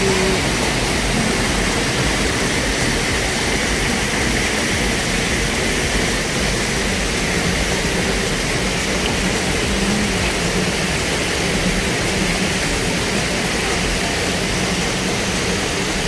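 Waterfall and stream water rushing steadily.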